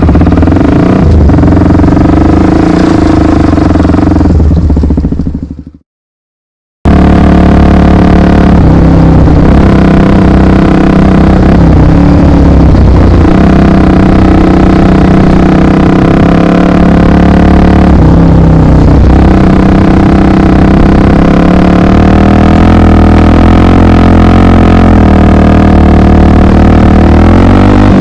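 Honda XR 250 Tornado's single-cylinder four-stroke engine running under way, its pitch shifting now and then with throttle and speed. About five seconds in the sound fades out, drops to silence for about a second, then comes back abruptly.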